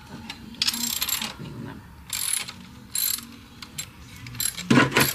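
Hand ratchet with a 10 mm socket clicking in about five short bursts as bolts are loosened, the loudest burst near the end.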